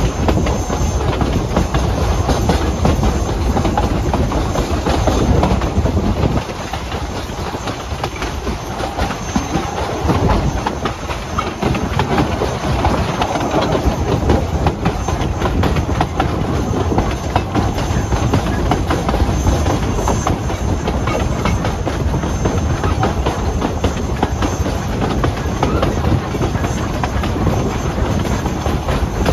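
East Broad Top No. 16 steam train running along the track: steady rumble and clatter of wheels on rail, with some steam hiss. It gets slightly quieter for a few seconds about a third of the way in.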